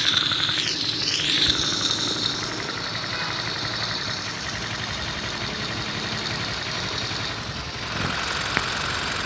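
A rebuilt Honda Chaly 50cc single-cylinder four-stroke engine running on a stand. Its pitch dips and rises in the first two seconds, then it runs steadily, with a few light ticks near the end.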